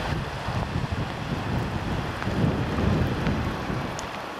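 Wind buffeting the microphone: an uneven, gusting low rumble over a steady hiss.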